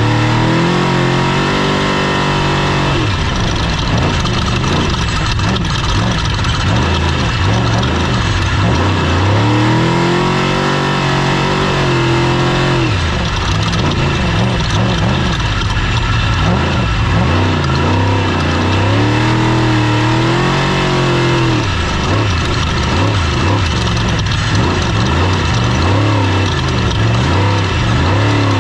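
Off-road race vehicle's engine revving hard, its note climbing and falling again and again as the throttle opens and closes, over a steady rush of wind and road noise.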